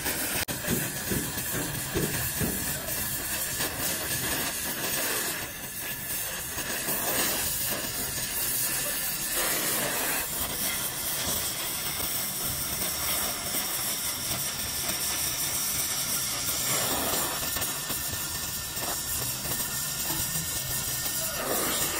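A steady hiss that shifts slightly in strength but never stops.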